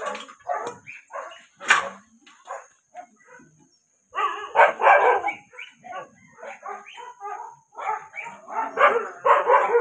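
Several shelter dogs barking in short, overlapping bursts, with a brief lull about three seconds in before the barking picks up again, thicker than before.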